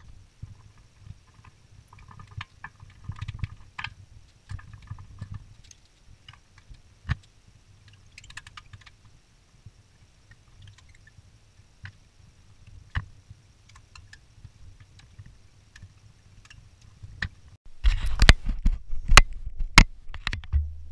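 Scattered clicks and rustling of hands working on an ATV's wiring harness, handling wires and plastic connectors. Near the end, a cluster of louder knocks and rubbing as the camera is picked up and moved.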